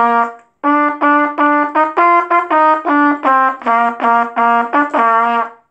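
A trumpet playing a brisk theme tune of short, separate notes. The tune breaks off for a moment about half a second in and stops shortly before the end.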